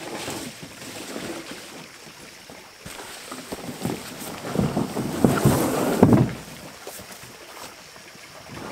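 Canoe being hauled out of the lake onto the bank: the hull scrapes and knocks over the ground, with a cluster of louder thumps about halfway through.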